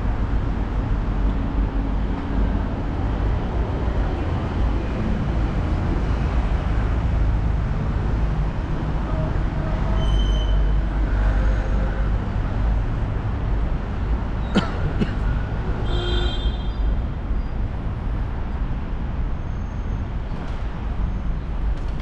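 Outdoor city street ambience: a steady low rumble of traffic, with a single sharp click about two-thirds of the way through and a short high squeal just after.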